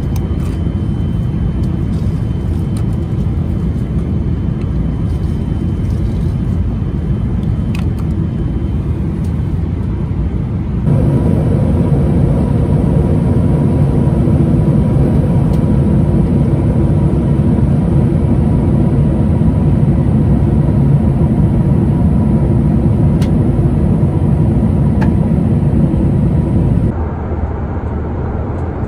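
Steady in-flight cabin noise of a Boeing 777-300ER at cruise, a dense low rumble of engines and airflow. It steps louder at a cut about 11 seconds in and drops again near the end.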